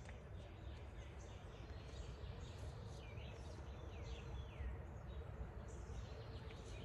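Faint birdsong: a quick run of falling chirps, then a few longer swooping calls, over a steady low outdoor background rumble.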